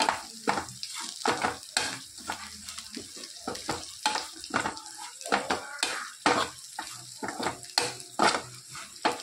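A spoon or spatula scraping and knocking in a pan as torn leftover rotis are stirred with spices in hot oil, over a steady sizzle of frying. The strokes are irregular, roughly two a second.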